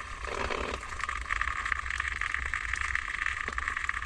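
Water draining from a cut CPVC supply line, falling in a steady stream and splattering below as the lines empty. Underneath is a low rumble.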